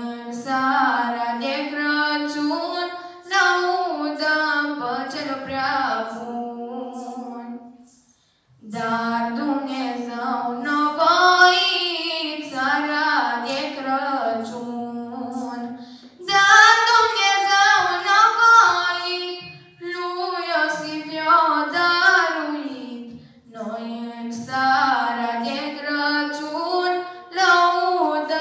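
Women's voices singing a Romanian Christmas carol (colindă) without accompaniment, in phrases of several seconds with short pauses for breath between them.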